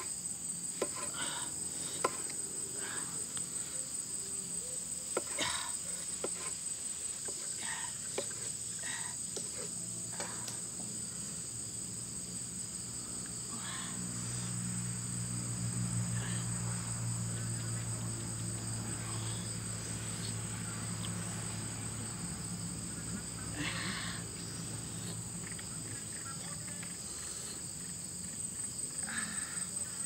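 Insects trilling steadily in a high pitch, with scattered light clicks and taps through it and a low hum that swells in the middle.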